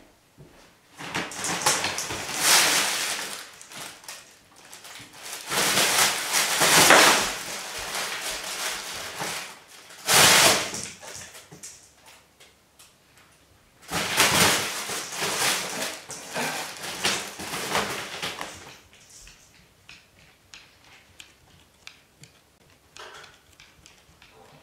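Fabric cat play tunnel rustling and crinkling as a cat scrambles inside it and shoves it across the floor. This comes in four bursts of a few seconds each, the loudest in the first half, followed by fainter scattered ticks and scuffs.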